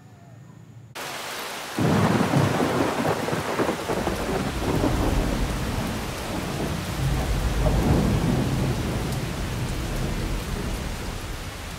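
Tropical rainstorm: a heavy downpour with rumbling thunder, coming in about a second in and growing louder almost two seconds in, the deep rumble swelling again near the middle.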